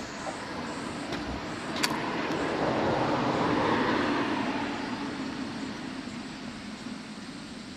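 A passing vehicle: its noise swells to a peak about halfway through, then fades away. A single sharp click comes about two seconds in.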